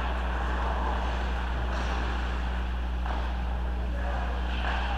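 Steady low hum under an even wash of indistinct background noise, with no clear impacts or words.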